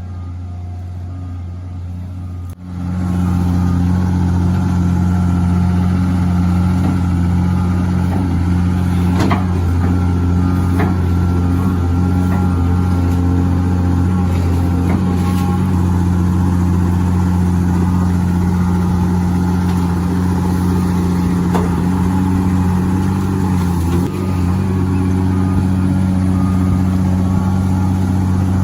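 Heavy machinery engine running steadily under load, a low hum that grows louder about two and a half seconds in.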